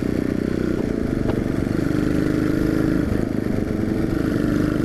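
Yamaha XT250's single-cylinder four-stroke engine running steadily under way at road speed, with wind rushing over the microphone. The freshly rebuilt engine is being ridden gently to break it in.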